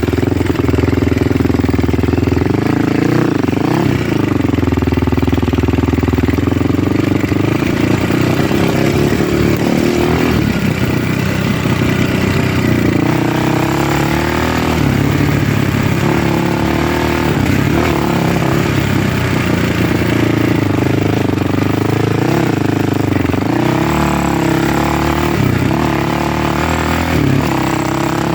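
A vehicle engine running continuously while driving, its pitch rising and falling with the throttle and briefly climbing several times.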